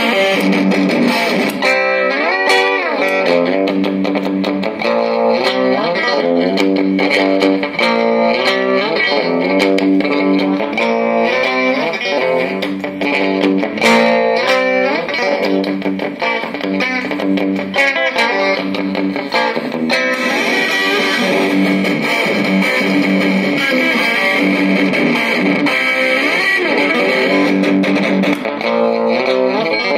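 Electric guitar played through a valve guitar amplifier head with four EL34 power tubes and four 12AX7 preamp tubes: continuous riffs and notes with slides, lightly distorted. The tone turns brighter about two thirds of the way through.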